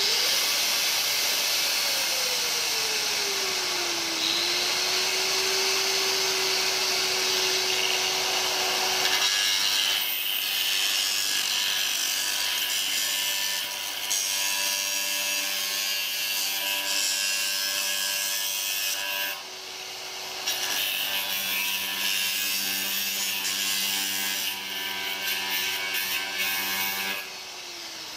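Makita angle grinder with a Bisazza glass-mosaic blade, running slowed down, the low speed used to cut glass tile cleanly without chipping. Its whine drops in pitch over the first few seconds as the speed comes down, then holds steady. From about nine seconds the blade grinds through rows of glass mosaic tiles, with a brief let-up about two thirds through, and near the end the grinder is switched off and winds down.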